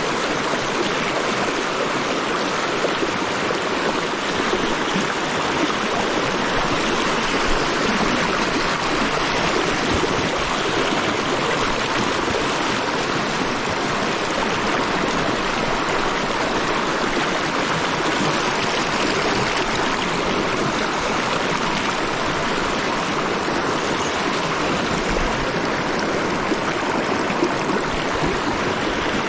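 River water rushing over boulders through whitewater rapids close by, a steady loud rush with no change.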